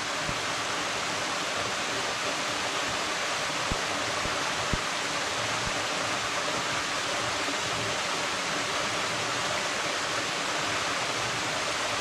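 Waterfall in low flow, thin streams of water falling down a rock face into a plunge pool, with a steady, even rush of water.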